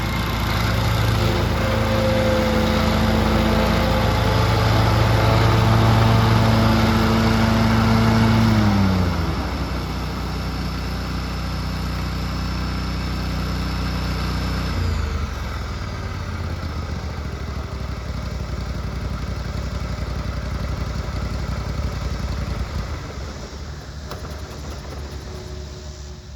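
Grasshopper front-mount zero-turn mower's engine running fast, then throttled down about nine seconds in. Around fifteen seconds in the sound drops again, with a high whine sliding away, and the engine keeps running at a lower speed.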